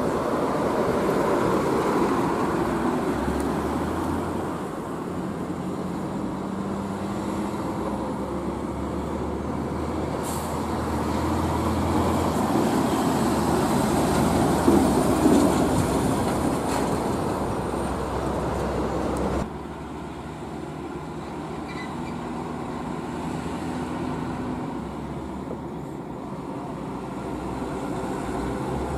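Heavy diesel trucks pulling away and passing close by, with engine and tyre rumble. It swells to its loudest about halfway through with a faint high whine, cuts abruptly to a quieter truck engine about two-thirds through, then grows again near the end.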